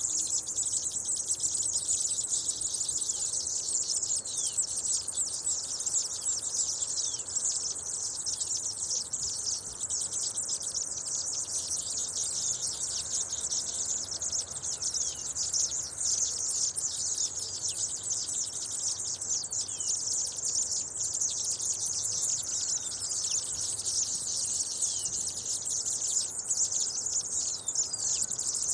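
A flock of seedeaters (espigueros) chattering without a break: a dense jumble of many quick, high chirps and short falling notes.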